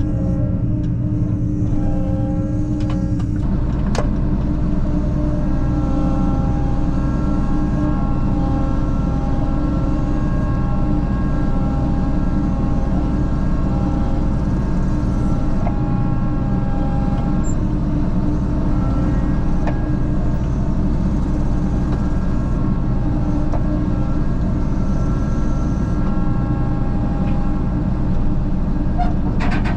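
A vehicle engine running steadily at an even speed, with a low rumble and a constant drone.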